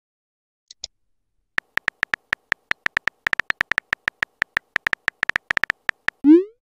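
Texting-app keyboard sound effect: a quick run of short, identical high-pitched keypress ticks, several a second, as a message is typed. Near the end a short rising swoop, the loudest sound, marks the message being sent.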